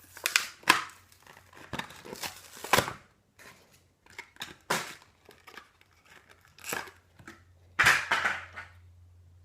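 Plastic-and-cardboard Hot Wheels blister package being pulled and torn open: irregular crinkling and tearing with sharp snaps, loudest about a second in and again near the end.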